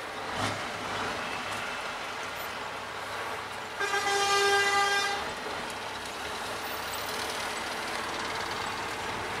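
Scania R500 V8 diesel engine running at low speed, heard from inside the cab. Near the middle, a horn sounds once for about a second and a half.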